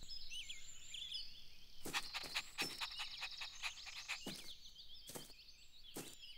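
Faint garden ambience of small birds chirping in quick, high twitters, with several short soft knocks spaced about a second apart.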